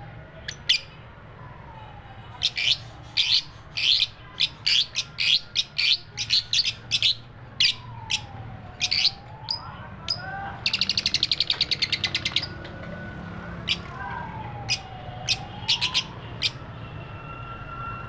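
Fischer's lovebirds chirping: sharp, high chirps in quick runs, thickest in the first half, with a rapid buzzing chatter lasting about a second and a half just past the middle, then scattered single chirps.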